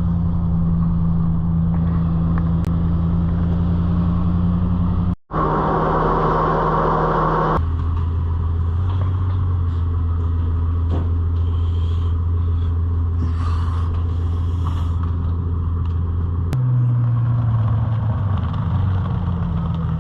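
A truck hauling a car trailer drives on the road, a steady low engine and road drone. The sound changes abruptly three times, with a brief dropout about five seconds in, where the clips cut.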